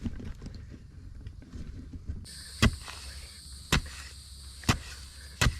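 A steady high insect chorus, cicadas or crickets, starts about two seconds in. Over it come sharp knocks roughly once a second, four of them.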